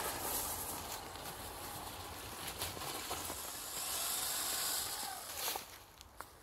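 Electric RC trucks driving on a leafy dirt trail: a faint motor whine over the hiss of tyres on leaves and dirt. The whine rises and falls in pitch between about three and a half and five and a half seconds in, then the sound fades.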